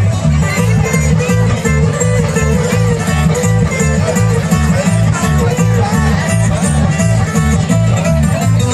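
Bluegrass string band playing live, with a steady pulsing bass rhythm under the strings.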